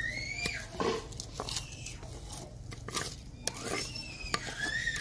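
Soaked rice scraped with a wooden spoon out of a clay bowl into a pot of boiling water: scattered scrapes and knocks of spoon on bowl, over a steady low hum. High, rising-and-falling calls sound near the start and again near the end.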